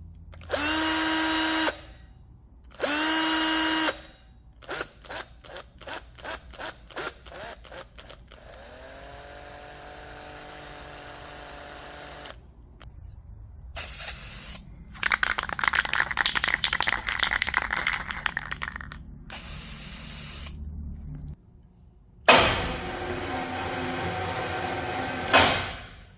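A series of separate power-tool and machine sound effects. First come two short bursts of a drill-like motor, each rising quickly to pitch. Then a run of quick clicks, a motor spinning up and holding a steady tone, a few seconds of loud rasping like cutting or grinding, and a last noisy machine run that stops suddenly.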